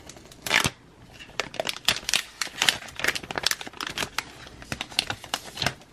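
Clear plastic shrink-wrap film being peeled off a phone box, crinkling and crackling in quick irregular snaps, with the loudest snap about half a second in.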